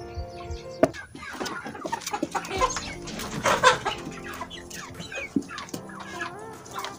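A flock of chickens clucking and calling, many short overlapping calls, with a sharp knock just before the clucking starts about a second in.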